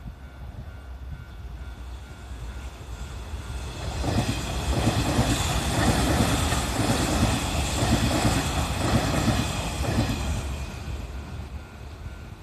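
Kintetsu Nara Line electric train passing over a level crossing. The running noise and wheel clatter build up, are loudest from about four to ten seconds in, then fade away.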